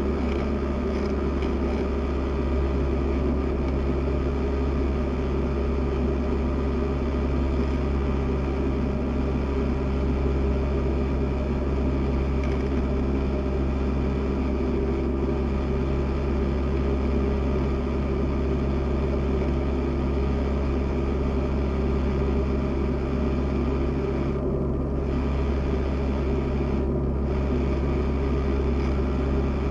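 Cessna 172 SP's four-cylinder Lycoming IO-360 engine and propeller running steadily in flight, heard as a constant drone inside the cabin.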